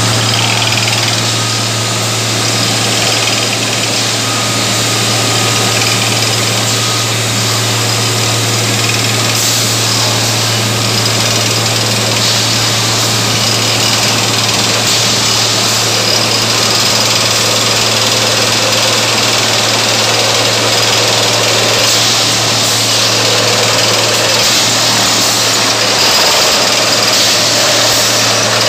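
Diesel engine of a Plasser 09-32 CSM tamping machine running steadily: a constant low hum with broad mechanical noise over it.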